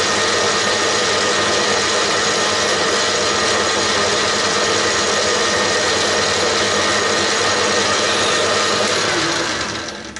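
Metal lathe running, its four-jaw chuck spinning a plate while a tool in the toolpost bores out the plate's centre hole. It makes a loud, steady mechanical din that dies away near the end as the spindle winds down.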